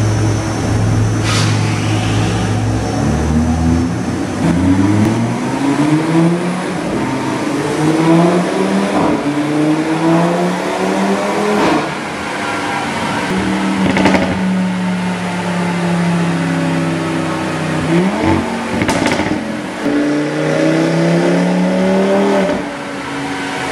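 Audi RS3 8V's 2.5 TFSI turbocharged five-cylinder engine pulling hard on a chassis dyno, its pitch climbing in repeated rises with a steady stretch midway. Several sharp cracks punctuate the run, and the engine falls back near the end.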